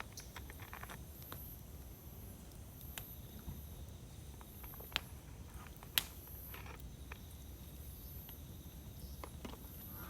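Wood fire crackling: scattered small snaps and ticks over a low steady hiss, with two sharper pops about five and six seconds in.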